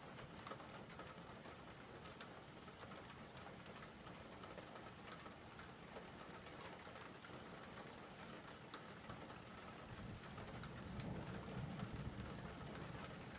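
Steady rain falling, faint, with scattered ticks of single drops. A low rumble of distant thunder builds over the last few seconds.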